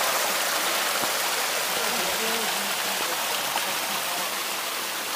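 Steady rush of running water, an even hiss, with faint voices in the background about two seconds in.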